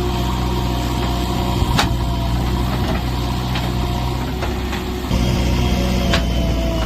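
JCB 3DX backhoe loader's diesel engine running steadily at low revs, with a sharp click about two seconds in and another near the end.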